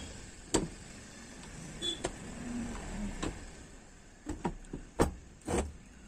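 Scattered short clicks and knocks, about seven in a few seconds, as bolts are set into the newly joined crankcase halves of a motorcycle engine during assembly.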